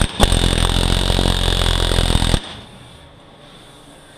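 Pneumatic air hammer rattling rapidly against the end of a transmission gear shaft for about two seconds, starting with a sharp click and then cutting off abruptly.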